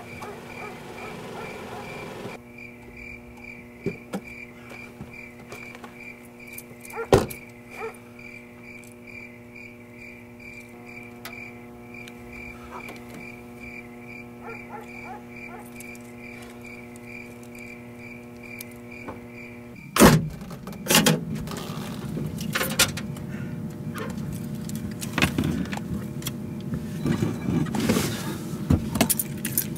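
Crickets chirping steadily over a low steady hum. About twenty seconds in, a loud thump, then clunks, knocks and rustling as a spare tyre is hauled out of a car boot.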